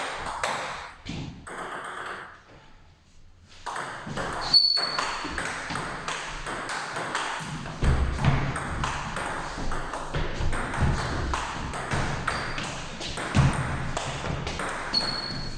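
Table tennis rally: the ball clicking off rubber-faced bats and the table in quick succession, with a short lull about two to three seconds in.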